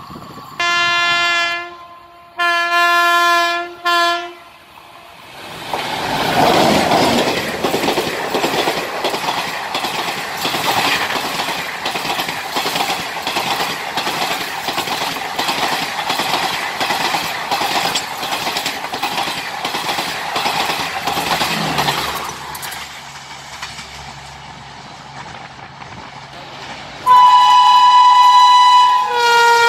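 Indian Railways train horn sounding two long blasts and a short one. Then a Garib Rath Express rushes past at speed, a steady rush with rhythmic clickety-clack of wheels over rail joints, dying away about two thirds of the way in. Near the end a WAP-5 electric locomotive's horn blares as it approaches, dropping in pitch as it passes.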